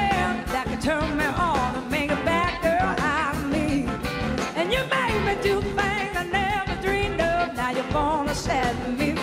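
Live blues-rock band playing: a woman singing at the microphone over electric guitar and drums.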